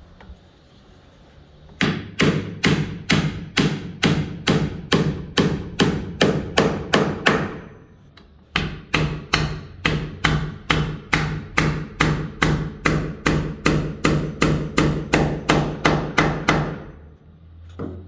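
Hammer driving a nail into wood: two runs of steady, evenly paced blows, about three a second, with a short pause between them, each strike ringing.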